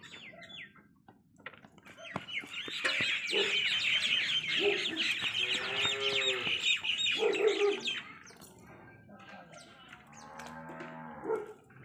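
Farmyard birds chirping and clucking in a dense chatter that starts about two seconds in and stops about eight seconds in. A few drawn-out calls from farm animals come through under it, and another comes near the end.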